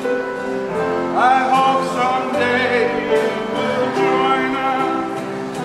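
A live song performance: a singing voice with vibrato over steady held accompanying notes.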